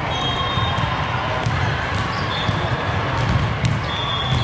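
Busy volleyball hall din: scattered sharp smacks of volleyballs being hit and bouncing on the many courts, over a steady echoing murmur of players and spectators. A few short, high referee whistle tones sound from other courts.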